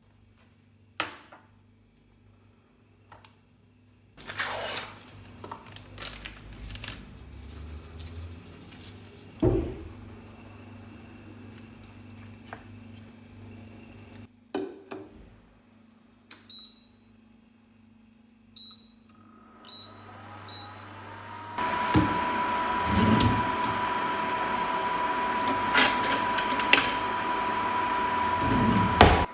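Microwave oven: a few handling knocks and clicks, then about five short keypad beeps, then the oven starts running with a steady hum and a constant tone.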